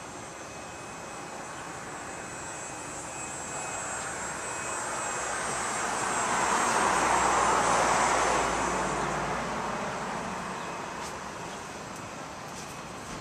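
An airplane passing: a steady rushing engine noise that slowly swells to a peak about halfway through, then fades away.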